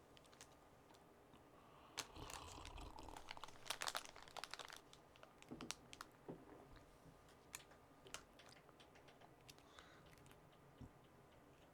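Faint clicks and crinkling from LEGO pieces being handled and pressed together, busiest about two to five seconds in, with scattered single clicks after.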